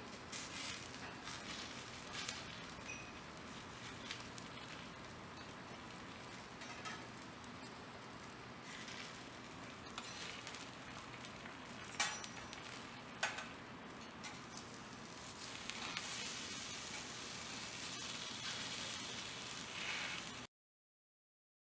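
Wagyu beef steak sizzling as it cooks over high heat, with a few sharp clicks of utensils. The sizzle swells louder near the end, then cuts off suddenly.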